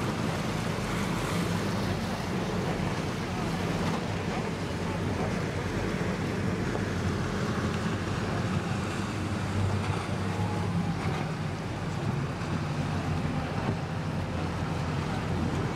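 Steady rush of wind and waves over open water, with a low, steady engine hum underneath.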